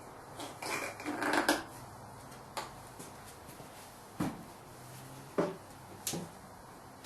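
A short clatter of hard objects being handled, followed by four separate knocks spaced a second or so apart.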